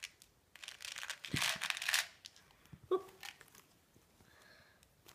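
Plastic candy wrapper crinkling and tearing as it is opened, loudest in the first two seconds, with a few lighter rustles after.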